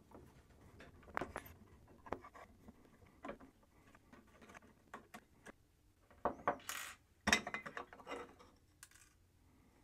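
Screwdriver backing out the small screws of a motherboard's metal M.2 heatsink: faint scratches and small clicks, then a louder clatter and rustle about six and a half to seven and a half seconds in as the screwdriver is put down on the desk and the heatsink plate is handled.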